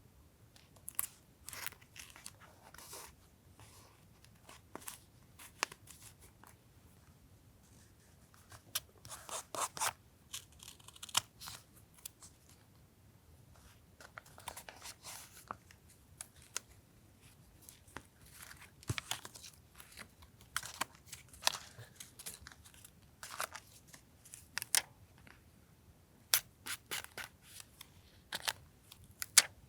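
Paper being worked for a collage: irregular short rustles, tearing and cutting sounds, with small taps of paper and tools on a desk.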